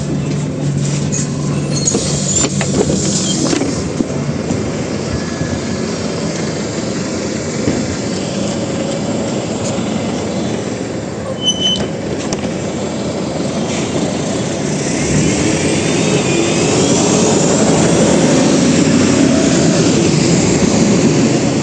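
Inside a Higer KLQ6129GQ2 city bus with a Voith automatic transmission under way: a steady engine and road rumble. About two thirds of the way in it grows louder, with a whine that climbs in pitch as the bus gathers speed.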